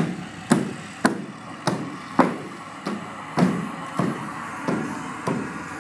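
A steady, even series of hollow knocks, a little under two a second, each with a short ringing tail, growing fainter over the last couple of seconds.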